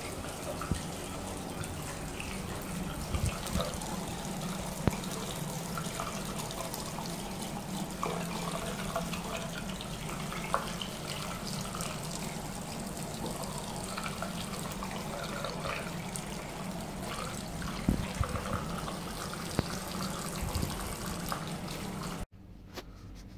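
Tap water running steadily into a bathroom sink basin as a wet kitten is scrubbed with a sponge under the stream, with a few sharp knocks along the way. It cuts off suddenly near the end to a quiet room.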